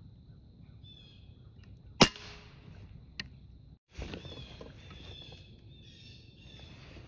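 A single rifle shot about two seconds in, sharp and loud, followed about a second later by a short, quieter click.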